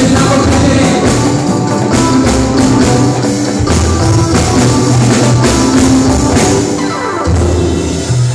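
Live band playing an instrumental passage: a drum kit keeping a steady beat with regular cymbal strikes over a bass line and chords.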